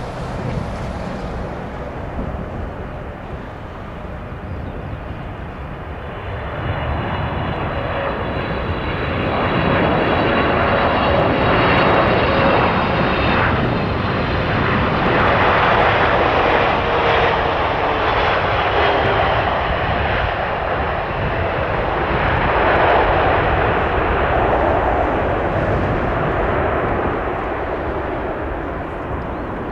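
Boeing 777-200F freighter's GE90 turbofan engines on landing, the jet noise building from about six seconds in and loudest through the middle, with a whine that falls steadily in pitch as the aircraft passes.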